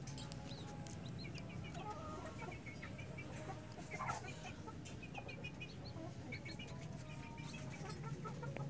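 Newly hatched chicks peeping in short runs of quick, high cheeps, over a steady low hum.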